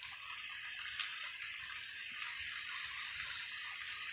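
Cubed turnip sizzling steadily in hot oil in a skillet, with one light tick about a second in.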